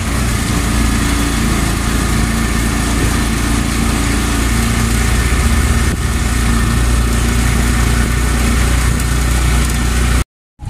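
A motor vehicle's engine running steadily, with a constant low rumble.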